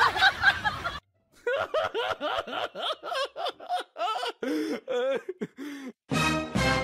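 A person laughing in a quick run of short giggles. Near the end, a loud steady tone starts abruptly.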